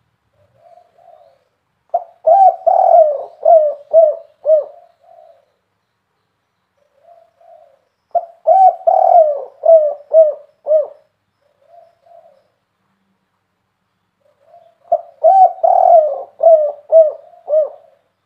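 Spotted dove cooing: three phrases about six seconds apart, each a soft note followed by a run of several deep, loud coos.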